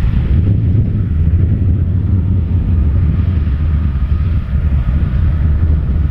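John Deere 9750 STS combine running steadily while harvesting, its 8.1-litre six-cylinder turbo diesel making a loud low rumble.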